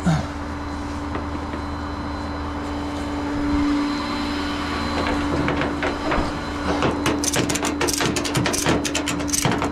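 Tow truck's engine running with a steady hum, a sharp knock at the start, then from about seven seconds in a fast, irregular run of metallic clicks and rattles.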